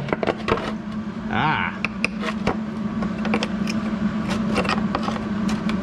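Small metal parts and hand tools clicking and knocking as they are handled, over a steady low hum, with a brief voice sound about one and a half seconds in.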